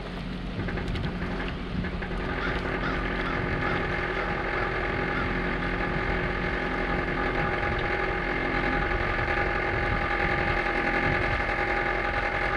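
Fishing reel drag buzzing steadily as a hooked striped bass pulls line off the spool, then cutting off suddenly near the end.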